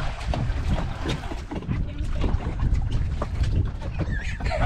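Wind buffeting the microphone over open water, with a steady low rumble and scattered short clicks and knocks.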